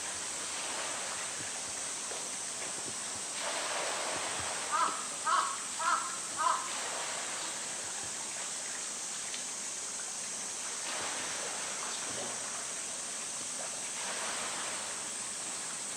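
Pool water washing and splashing around a swimming polar bear. About five seconds in, a crow caws four times in quick succession.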